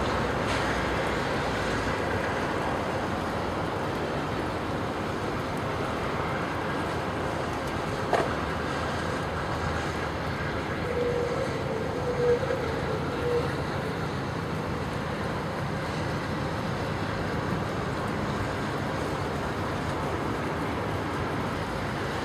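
Steady rumble and hiss of a standing passenger train, with one sharp knock about a third of the way in and a brief wavering squeal near the middle.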